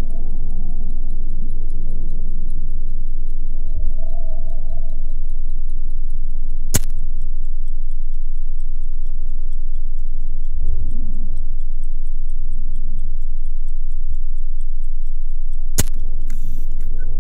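Film sound design: a loud, steady low drone with a rapid, clock-like ticking running over it, and a sharp click about seven seconds in and again near the end.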